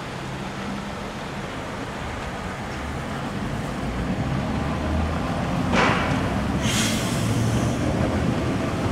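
Sapporo streetcar running past on its rails, a low rumble of motor and wheels that grows louder, with two brief hisses about six and seven seconds in.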